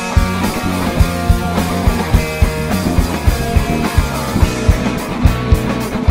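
Rock band playing live: distorted electric guitars, bass guitar and a drum kit, with steady, regular drum hits driving the beat.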